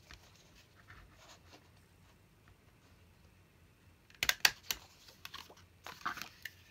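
Tim Holtz Tiny Attacher mini stapler clicking as staples are set through paper: a quick cluster of sharp clicks about four seconds in, after light paper rustling, with more rustling and small clicks near the end.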